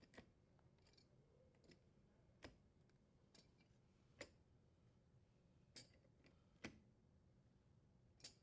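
Faint, sparse clicks, about six of them at irregular intervals, from the front leveling legs of a KitchenAid dishwasher being threaded out.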